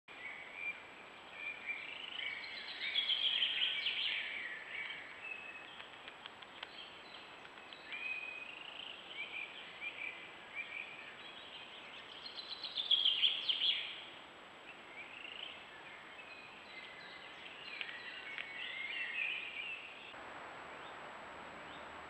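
Forest birds singing, several overlapping warbling, chirping songs, loudest a few seconds in and again about halfway through. Near the end the singing cuts off, leaving a steady hiss.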